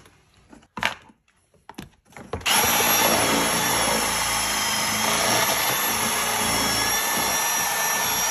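A few light knocks, then a cordless power tool starts about two seconds in and runs steadily at constant speed, with a steady high whine over the noise. It is enlarging a hole through the floor for a cable.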